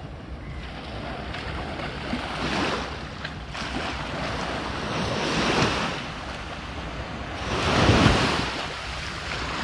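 Small sea waves washing onto a sandy beach, swelling and falling back every few seconds, the loudest near the end; wind buffets the microphone.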